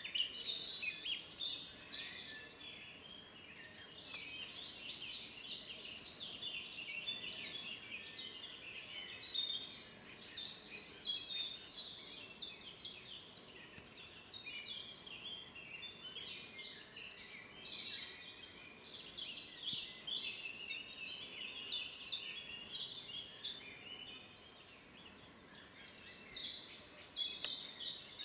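Several songbirds singing at once, a dense overlapping chorus of chirps and trills. About ten seconds in and again about twenty-one seconds in, one bird gives a loud phrase of quick repeated notes.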